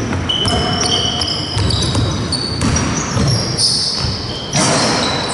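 Basketball game sounds: sneakers squeaking on the wooden court in many short high squeaks over the low knocks of the ball bouncing. Applause breaks out near the end.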